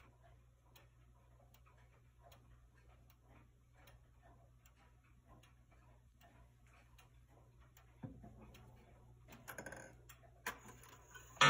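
Large weight-driven Black Forest cuckoo clock ticking steadily. About eight seconds in there is a thump, then a short spell of scraping and clicks as the hands are turned by hand.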